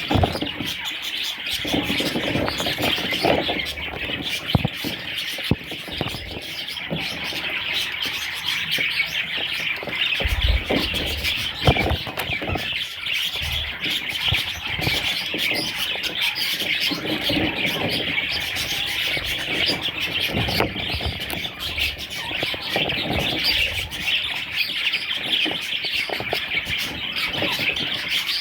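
A group of budgerigars chattering and warbling without pause, with a few scattered knocks.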